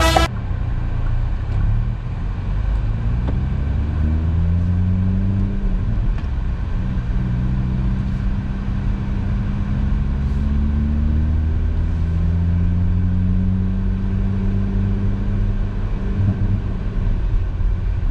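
A car's engine running under way with a steady low rumble, its pitch rising as it accelerates about two seconds in and again about ten seconds in.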